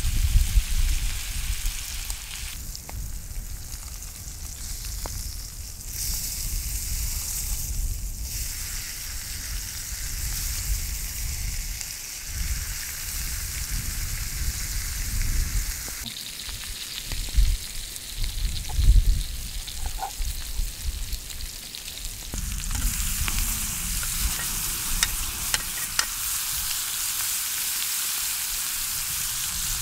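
Pork chops frying in a cast-iron grill pan over wood embers: a steady sizzle, with a few low bumps about two-thirds of the way through. For the last several seconds the sizzle grows louder and crisper, with garlic-and-parsley butter in the pan.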